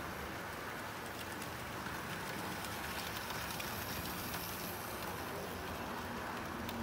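Model railway freight train rolling along the layout's track: a steady running rumble of wheels on rail with faint scattered clicks.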